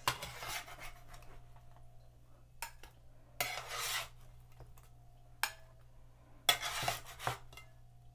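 A kitchen utensil scraping and scooping baked eggplant cubes out of a pan, in three short scrapes with a couple of sharp clicks between them. A low steady hum runs underneath.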